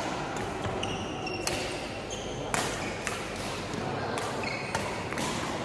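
Badminton rally: rackets striking the shuttlecock in a string of sharp hits about once a second, over the hum and chatter of a large hall.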